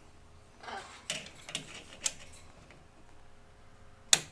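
Sharp metallic clicks and taps of a flathead screwdriver prying at the aluminum roller assembly of a sliding glass door, a few scattered clicks with a short scrape early on and the loudest click near the end.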